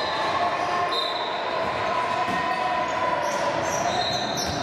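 Gym sound of a youth basketball game: a ball bouncing on the hardwood court amid a crowd's and players' voices, with short high squeaks of sneakers on the floor.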